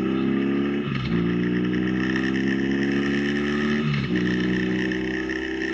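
Motorcycle engine accelerating through the gears: its note climbs steadily, then drops sharply at an upshift about a second in and again about four seconds in, climbing again after each shift.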